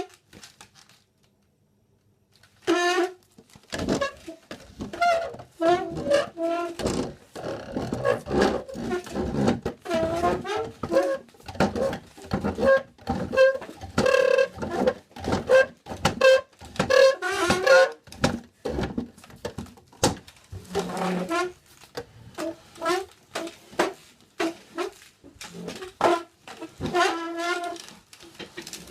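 Chair legs scraped across a floor again and again, each drag giving a short pitched squeal, some sliding up or down, in quick succession. Near silence for the first two and a half seconds or so.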